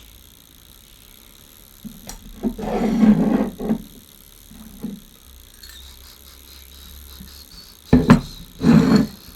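Metal casing and parts of a commercial toaster being handled during disassembly: a clattering rattle a few seconds in, a lighter knock, then two loud clunks near the end.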